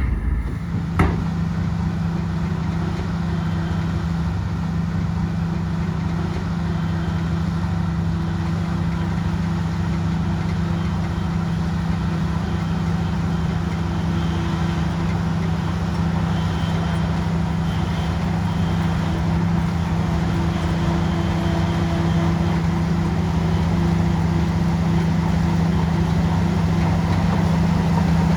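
Bulldozer's diesel engine running steadily at a constant note, with one sharp knock about a second in.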